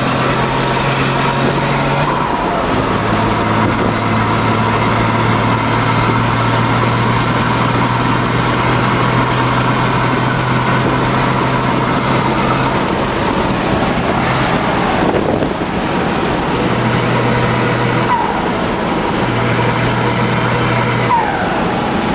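Chevrolet Silverado pickup's engine and exhaust rumbling steadily, a deep held note that drops slightly about two and a half seconds in and briefly falls away a couple of times later on.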